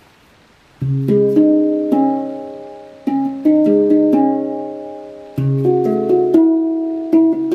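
Handpan tuned to C# minor, played with the fingers: a deep low note struck about a second in, then higher notes ringing over one another and slowly dying away, with another deep low note about five seconds in.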